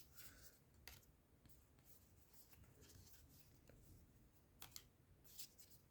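Near silence with a few faint clicks and rustles of trading cards being handled and slid past one another.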